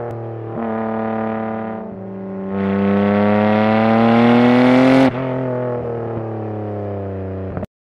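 Sports car engine sound effect. The engine steps up in revs, drops back, then climbs steadily in pitch for a few seconds as it accelerates. The pitch falls sharply about five seconds in, holds steady, and cuts off suddenly near the end.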